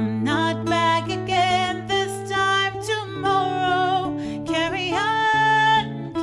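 A woman singing held notes with vibrato, accompanied by a plucked acoustic-electric guitar.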